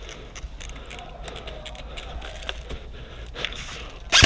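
Low rustling with scattered faint sharp clicks of airsoft guns firing at a distance, then a loud sharp crack right at the end.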